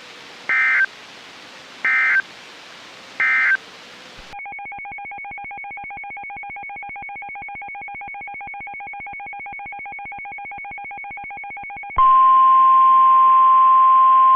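Weather radio alert data signals: three short warbling data bursts about a second and a half apart, the end-of-message code closing one warning. After them comes a steady, quieter buzzing pulsed tone for about eight seconds. About two seconds before the end, the loud, steady single-pitch warning alarm tone starts for the next alert.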